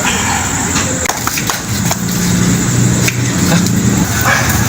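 Traffic noise: a motor vehicle's engine running steadily for about two seconds in the middle, over a background of scattered sharp clicks and taps.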